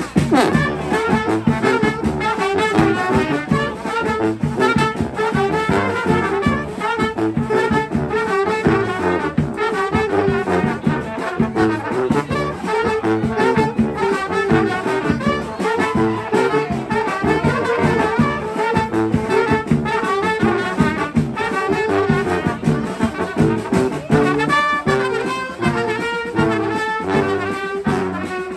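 Street brass band playing a tune, with trombones and trumpets together over a steady beat.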